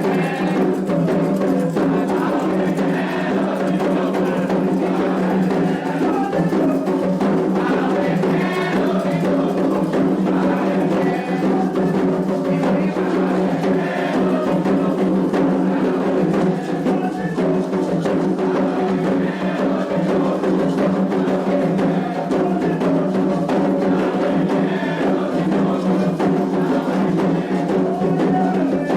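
Atabaque drums playing a Candomblé toque for the orixá Ossain, with a group of voices chanting over the drumming.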